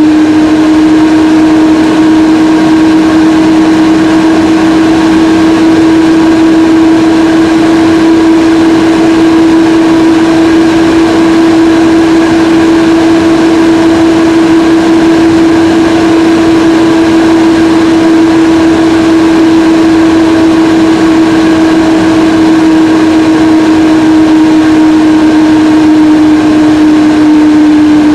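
Apple Mac Pro's internal cooling fans running at high speed, heard from inside the case: a loud, steady rush of air with a strong whine, pitched like an airplane getting ready to take off. The whine sags slightly in pitch near the end.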